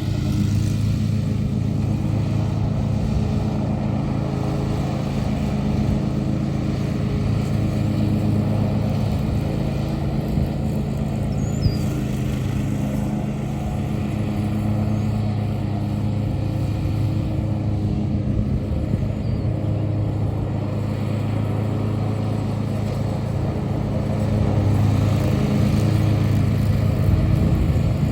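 An engine running steadily at an even pitch, getting a little louder near the end.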